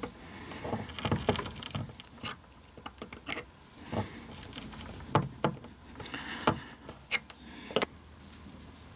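Irregular scratching, taps and small clicks of a pointed steel marking tool worked through a hole in a knife blade's tang onto a hardwood handle blank, marking where the holes will be drilled.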